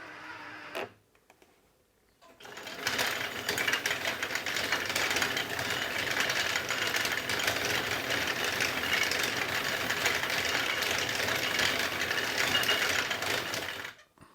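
1/6 scale Armortek Tiger 1 RC tank running with its sound unit off: the electric drive motors, gearboxes and metal tracks make a steady, dense mechanical rattle. It starts about two seconds in, after a brief silence, and stops just before the end.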